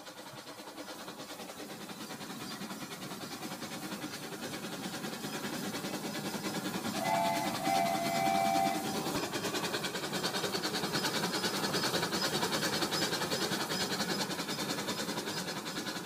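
RailKing toy train running along its track, a steady motor whir and rapid wheel rattle growing gradually louder. About seven seconds in, two short horn toots sound one after the other.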